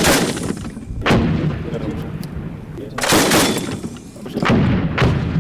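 Heavy gunfire: about five loud, separate shots, each with an echoing tail, and a low rumble between them.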